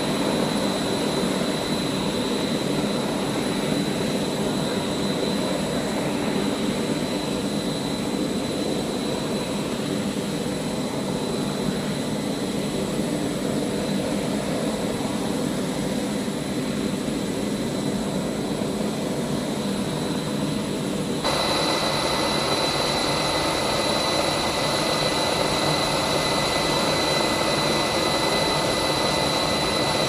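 Steady whine and rumble of an aircraft gas turbine running at the aircraft, with high steady whistling tones over the rumble. About 21 seconds in the sound jumps abruptly louder and a further, lower whine joins in.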